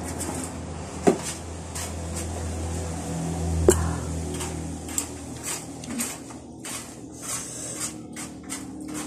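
Eating sounds close to the microphone: chewing, lip smacks and small ticks of fingers picking at grilled fish and rice. A sharp clink about three and a half seconds in is a glass bowl set down on the table. A low rumble runs underneath and swells around the middle.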